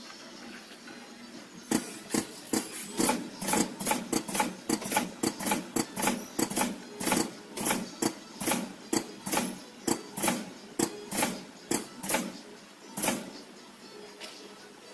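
Automatic drinking straw applicator machine running, its mechanism clacking in a quick even rhythm of about three clacks a second. The clacking starts about two seconds in and stops shortly before the end.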